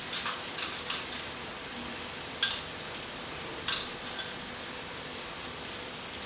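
Beef and sauce simmering in a hot pan with a steady low sizzle, broken by a few light clicks near the start and two sharp utensil taps on the pan, the second about a second after the first. The thickening slurry is about to go in or is going in.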